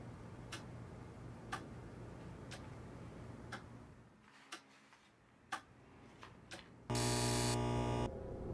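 Wall clock ticking about once a second, quietly. Near the end a sudden loud buzzing burst, about a second long, cuts in and stops.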